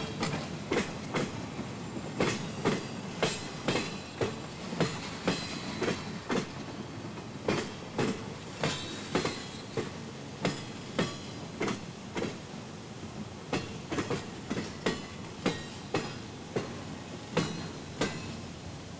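Empty freight flatcars rolling slowly past, their wheels clacking over rail joints about twice a second above a steady rumble, until near the end.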